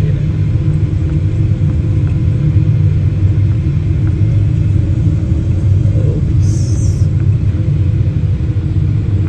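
Steady low rumble of a jet airliner rolling along the runway after landing, as heard inside the passenger cabin: engine noise mixed with wheel and airframe rumble. A brief faint hiss sounds about six and a half seconds in.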